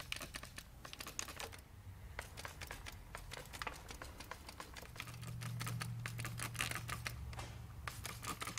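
A rapid, irregular run of light clicks and short hisses from a trigger spray bottle squirting soapy water over a pressurised two-stroke scooter engine to look for leak bubbles. A low hum comes in about five seconds in and fades near the end.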